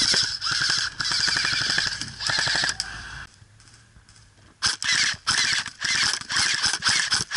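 Airsoft electric gun (AEG), a custom full-metal M16 on an 11.1 V lipo with a 13:1 gear set, firing rapid full-auto bursts: its gearbox cycling in a fast, dense clatter. A long stretch of fire for about three seconds, a short pause, then several shorter bursts near the end.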